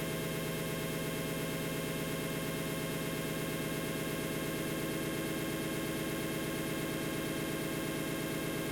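Dense, unchanging digital noise: a steady hiss across all pitches with several held buzzing tones and a fast, even flutter underneath, like raw binary data played back as sound.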